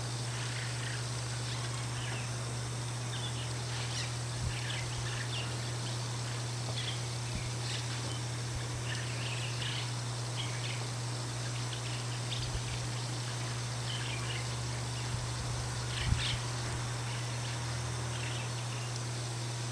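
White-cheeked starling giving soft, muttering chirps and squeaks, short notes scattered irregularly throughout, over a steady low hum. A brief low knock sounds about three-quarters of the way through.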